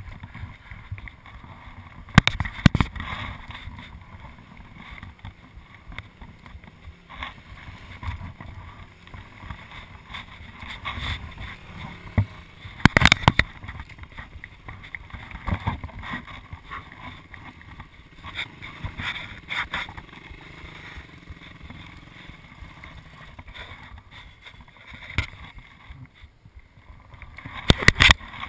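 Dirt bike engine running at low revs, with several sharp knocks, the loudest about thirteen seconds in and another near the end.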